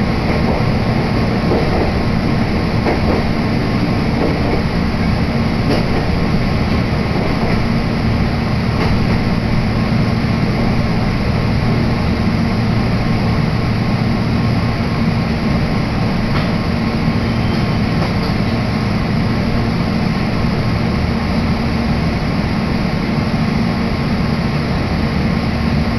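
Steady running noise heard inside a Meitetsu electric commuter train car: an even rumble of wheels on rail with a low hum, continuing as the train reaches a station.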